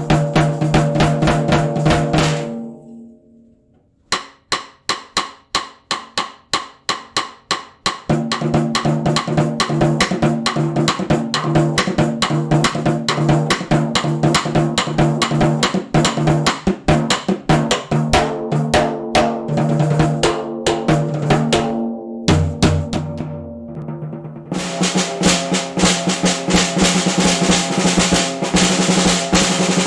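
Handmade solid-wood stave snare drum played with sticks: fast strokes and rolls that stop about two seconds in and let the drum ring out, then single hits about two a second, then fast playing again with a short lull past two-thirds of the way through.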